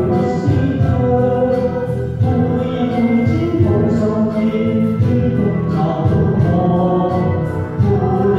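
A man singing a Cantonese pop song into a microphone over backing music, amplified through a PA system.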